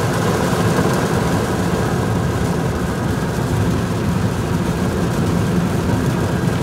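Steady road and engine noise inside a car at motorway speed in heavy rain.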